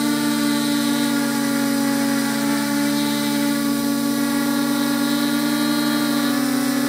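Multirotor drone's electric motors and propellers whining steadily, heard up close from the drone's own camera. The pitch wavers slightly as the motors change speed while it manoeuvres.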